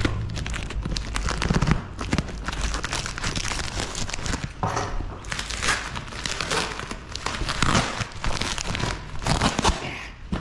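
Plastic wrapping film crinkling and tearing as a parcel is cut open with a pocketknife and unwrapped by hand: a dense, irregular run of crackles, with louder clusters in the second half.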